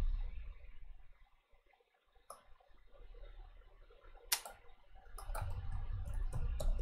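Scattered sharp clicks of a computer mouse and keyboard, the loudest about four seconds in and a quick run of them near the end, over a faint low hum.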